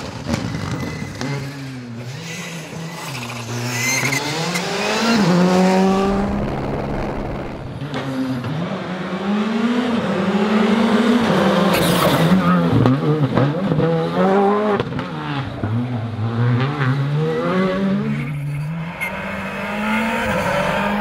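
Skoda Fabia Rally2 rally cars driving hard at speed, their turbocharged four-cylinder engines revving up and dropping back again and again through gear changes, with tyres scrabbling and sliding on gravel.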